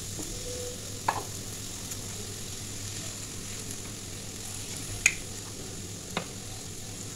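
Cut green beans, carrots and green peas frying in oil in an aluminium kadai: a steady sizzle, stirred with a wooden spatula at the start. A few sharp clicks sound over it, the loudest about five seconds in.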